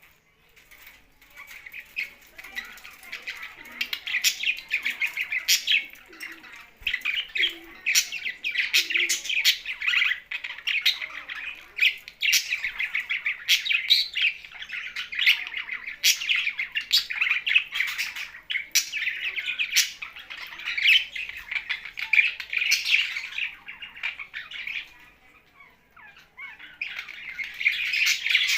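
Pet budgerigars and parrots chirping and chattering together, a dense stream of quick calls, dropping off briefly near the end and then starting up again.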